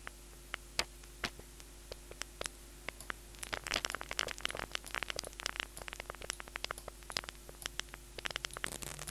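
Synthesized crackle from the Vital software synth: randomised short clicks through filtered noise, a paper-crumpling effect in progress that sounds like rain starting. The clicks are sparse at first and thicken into a dense patter about three and a half seconds in.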